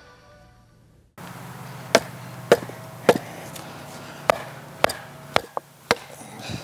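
A piece of firewood knocking a chainsaw stump vise down into a log: about eight sharp knocks over some four seconds, over a steady low hum. Before them, the tail of fading music.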